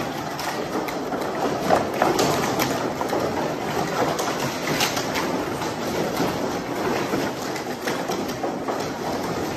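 Continuous rapid clatter of plastic sport stacking cups being stacked and unstacked at many tables at once, with a few sharper clicks from cups close by, the loudest about two seconds in.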